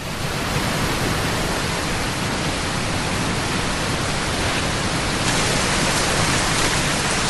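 Heavy rain pouring steadily, a dense even hiss that grows a little brighter about five seconds in.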